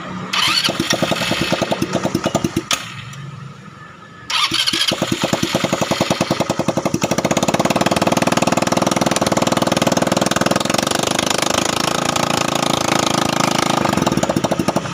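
Single-cylinder scooter engine started on the electric starter through its freshly repaired Bendix starter clutch: it fires and runs for about two seconds, stops, then starts again about four seconds in and keeps running steadily.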